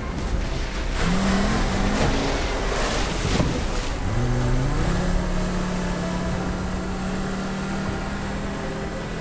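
Car engine accelerating hard, its pitch rising in short steps as it shifts up through the gears about one, two and four seconds in, then holding a steady high note, over a rush of road and wind noise.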